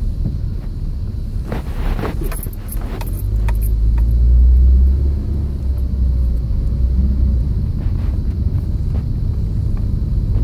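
Scion xA running down the road, heard from inside the cabin: a steady low engine and road rumble that swells for a couple of seconds about four seconds in as the car pulls harder. A few light clicks come about two seconds in.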